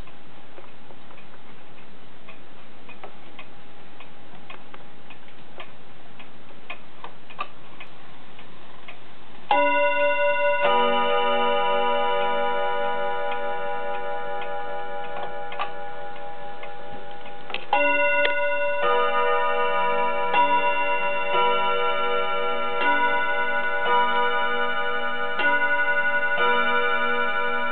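1930s F.M.S. pendulum wall clock ticking steadily. About ten seconds in its chime rings out a sequence of notes, and from about eighteen seconds a longer run of chime notes follows. The chimes are set off by the hands being turned forward by hand to the half hour and the hour.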